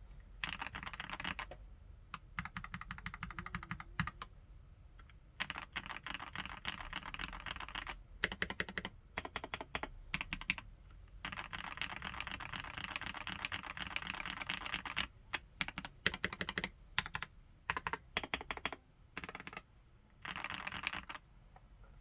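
Epomaker Brick 87 mechanical keyboard with Gateron Pro Yellow linear switches being typed on, in quick runs of keystrokes broken by short pauses and single strokes, stopping just before the end.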